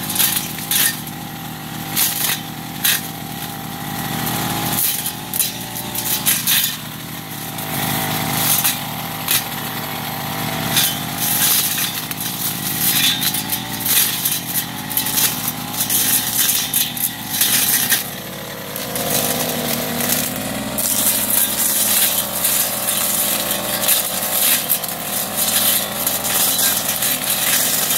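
Backpack brush cutter's engine running hard, its pitch rising and dipping as the throttle is worked. Frequent short crackles and snaps come as the blade cuts through undergrowth.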